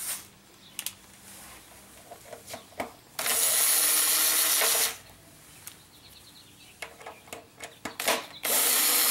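Cordless screw gun with an Allen hex bit backing out the bolts of a motorcycle airbox cover. It runs twice, about a second and a half each time, once about three seconds in and again near the end, with small handling clicks in between.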